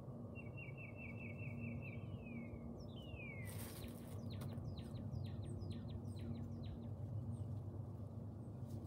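A songbird singing: a fast trill of evenly repeated high notes, then a couple of falling slurred notes and a run of quick downward-sweeping notes. Underneath is a steady low outdoor background rumble, with a brief scuff of noise about three and a half seconds in.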